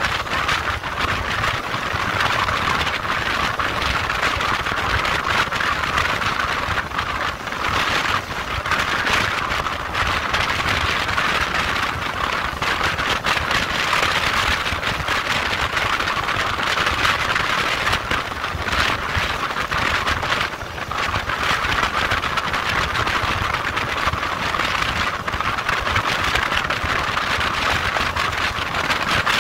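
Motorcycle on the move, heard from an onboard camera: a steady rush of engine and wind noise with a low, buffeting rumble.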